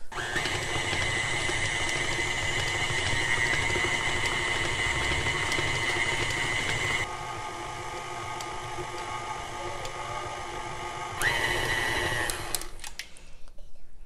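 Stand mixer's motor running steadily with a high whine as its flat beater mixes thick chocolate frosting. The sound drops in level about seven seconds in and is louder again a little after eleven seconds, with a short rising whine. It stops about a second and a half before the end.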